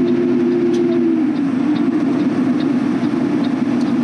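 Semi truck's diesel engine pulling steadily up a long grade under a heavy load, heard from inside the cab; a steady drone whose note dips slightly about a second in.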